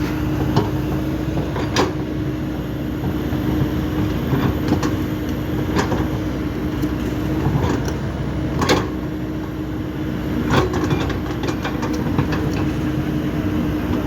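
Kobelco SK210 excavator's diesel engine running steadily, with several sharp knocks at irregular intervals.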